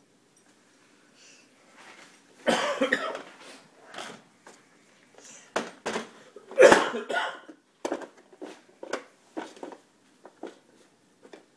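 Plastic high-chair tray being handled and knocked about on a wooden floor: two louder rough bursts, then a run of short plastic knocks and clicks.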